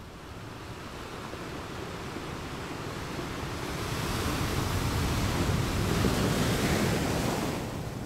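Rushing noise of sea surf that swells over about five seconds, loudest past the middle, and falls away just before the end.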